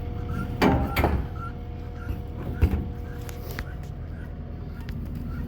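Two sharp knocks about a second in and another a little after two seconds, over a steady low hum with a faint chirp repeating about every half second.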